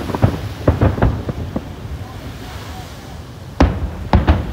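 Japanese aerial fireworks shells bursting: a rapid cluster of bangs and crackles for about a second and a half, a short lull, then three loud booms near the end.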